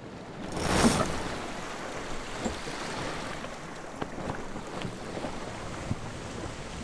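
Sea waves washing and wind blowing, with a whoosh that swells up about a second in and a few faint knocks.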